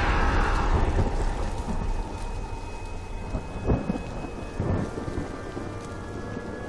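A deep rumble like rolling thunder, loudest in the first second or two and then fading, under a held droning tone. Two sudden hits come about a second apart near the middle.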